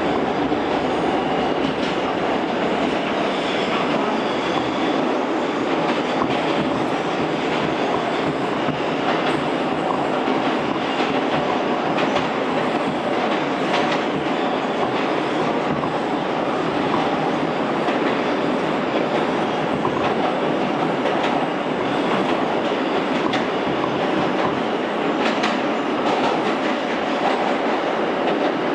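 Inside an R160 New York subway car running at speed through a tunnel: steady rumble of wheels on rail, with occasional sharp clicks from rail joints.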